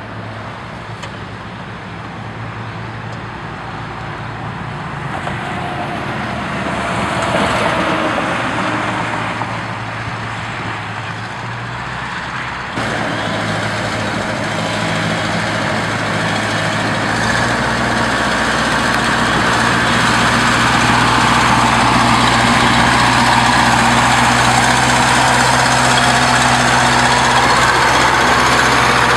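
A motor vehicle engine running steadily under loud road and air noise that builds over the stretch, with a sudden shift in the sound about halfway through.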